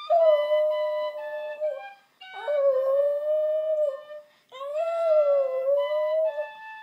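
Border terrier howling along to a penny whistle tune: three long, wavering howls with the whistle's melody stepping from note to note above them, both breaking off briefly twice.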